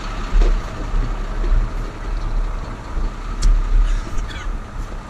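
Fire engine's engine running at idle close by: a steady hum over an uneven low rumble, with a few faint clicks about three and a half to four seconds in.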